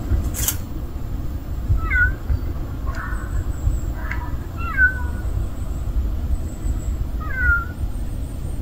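A cat meowing three times, short high calls about two and a half seconds apart, over a steady low rumble. A sharp click sounds about half a second in.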